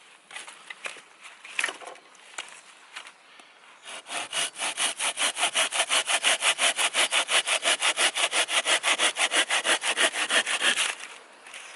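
Hand saw cutting through wood for the fire: a few scrapes and knocks as the blade is set, then about four seconds in a fast, steady back-and-forth sawing of about five strokes a second, which stops about a second before the end.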